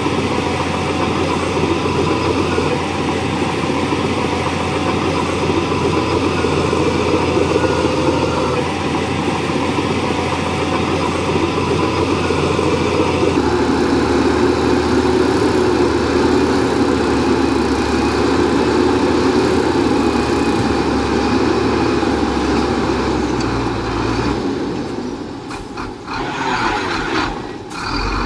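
Heavy earthmoving machine's diesel engine running steadily, its note changing about halfway through and the sound dropping and wavering near the end.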